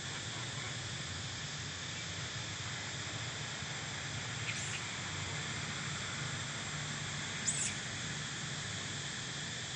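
Steady high drone of insects, with two brief high chirps about four and a half and seven and a half seconds in.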